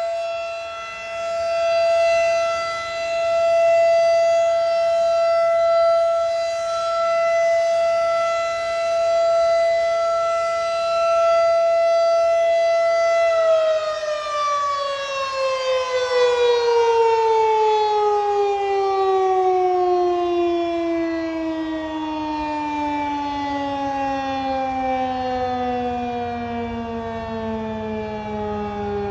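Federal Signal 2001-DC rotating outdoor warning siren sounding its steady 670 Hz alert tone, swelling and fading in loudness. About halfway through, the tone stops being driven and the pitch slides slowly and smoothly down as the rotor coasts: the siren winding down at the end of its 3-minute alert.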